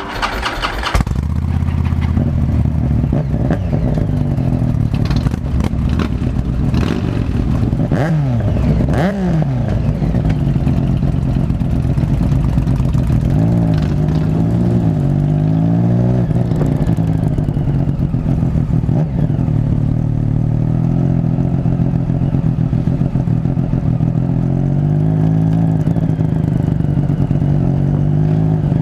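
Motorcycle engine starting up at the beginning, then running steadily, revved sharply twice around eight and nine seconds in, with smaller rises and falls in engine speed later on.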